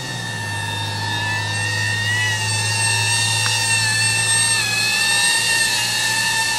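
DJI Avata FPV drone hovering close by, its motors and propellers giving a steady high whine in several tones that waver slightly, over a steady low hum.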